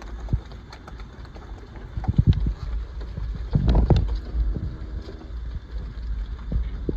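Dairy cows' hooves clopping irregularly on a hard yard, over a steady low rumble, with a louder clatter about halfway through.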